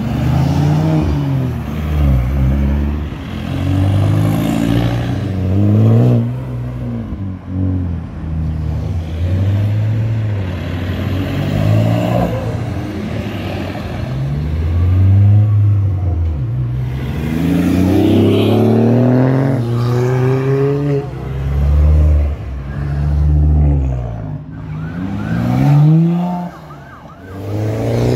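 Cars accelerating away one after another, their engine notes rising and falling as each car revs up through the gears and pulls off, with several strong rising revs in the second half.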